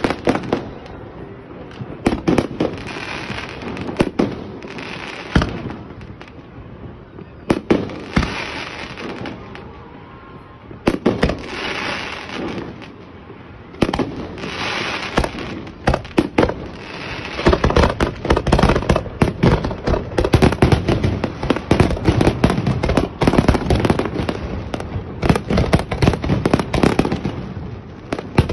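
Aerial fireworks display: shells bursting with sharp bangs and crackle, in separate volleys at first, then from just past halfway a dense, rapid barrage of bangs.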